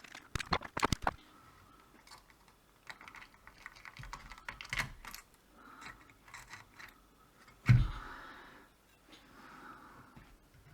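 Small sharp clicks and taps of tools working a resistor loose from a circuit board during desoldering, with one louder thump about three-quarters of the way through.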